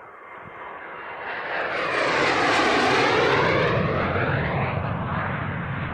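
Military jet making a low, fast pass: its engine noise swells to a loud peak about two to three seconds in, then slowly fades, with a sweeping, phasing tone as it goes by.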